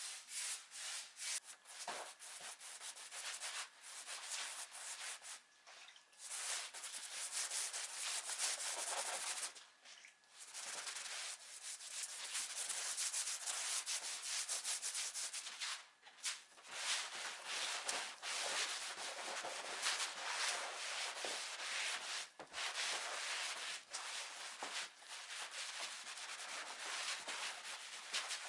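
Sandpaper being rubbed over wood by hand in quick back-and-forth strokes, a dry scratchy hiss that stops briefly several times between runs of strokes.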